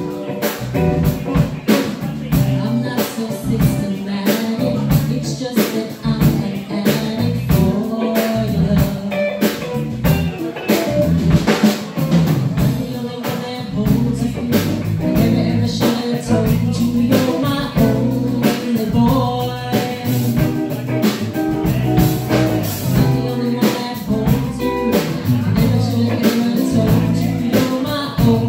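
Live band playing: hollow-body electric guitar, electric bass and drum kit with a steady beat.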